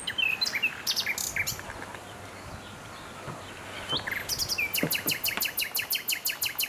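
Songbirds singing: several short high chirps and calls, then, about four seconds in, a fast trill of evenly repeated high notes, about six a second, lasting a couple of seconds.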